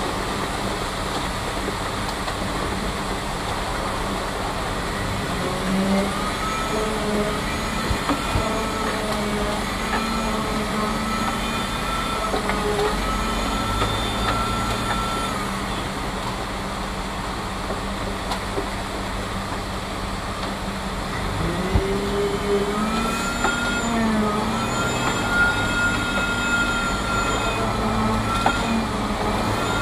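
Heavy diesel truck engine running, its pitch rising and falling in slow swells, with a steady low hum underneath.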